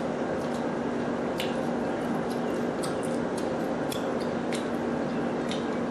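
Cooked lobster shell being cracked and picked apart by hand: a run of short, sharp, irregular clicks and snaps over a steady background hum.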